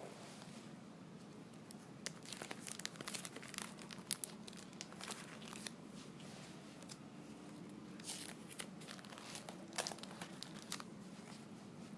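Faint crinkling and rustling of something being handled, in irregular clusters of small crackles, busiest a couple of seconds in and again near the end.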